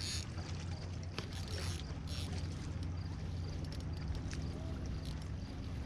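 Kayak on the water: a steady low rumble with light water splashes and small ticks.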